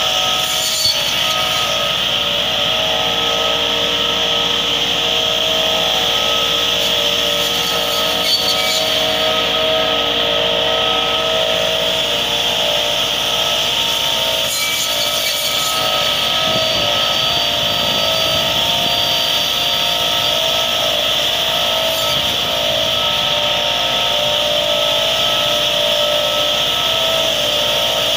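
Massey Ferguson 385 tractor's diesel engine running steadily while the circular saw discs of its front-mounted hydraulic tree trimmer spin, giving a steady high whine. The spinning blades rasp and brush through leafy branches as they cut into the tree canopy.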